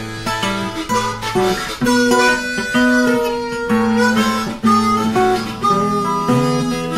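Instrumental music: a harmonica melody of held notes over a plucked acoustic guitar, in a steady rhythm.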